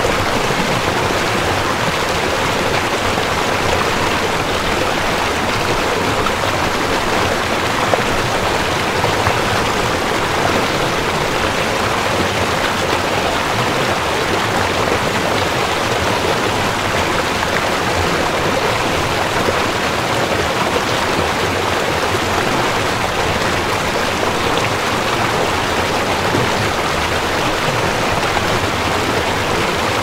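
Steady rush of a flowing stream, with no break or change.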